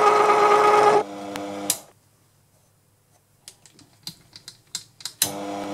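Proxxon PD 250/e mini lathe running with a straight knurling wheel pressed into a brass bar, then shutting off about a second in and running down. A few light clicks sound in near quiet, and the lathe starts up again near the end.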